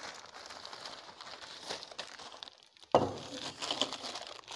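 Thin plastic carrier bag rustling and crinkling as it is handled, with a sudden knock about three seconds in.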